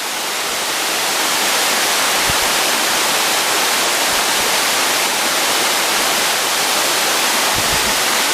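Rushing water of a mountain stream cascading close by: a loud, steady hiss that swells a little over the first second and then holds.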